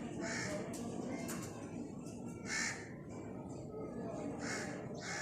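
Crows cawing: about four short, harsh caws a second or two apart.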